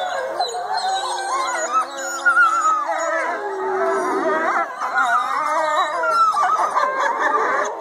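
A pack of wolves howling together in chorus: many overlapping voices gliding up and down in pitch, with deeper howls held steady beneath higher, wavering ones.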